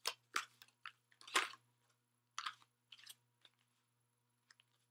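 A deck of oracle cards being shuffled and handled in the hands: a handful of short, irregular card sounds with gaps between them.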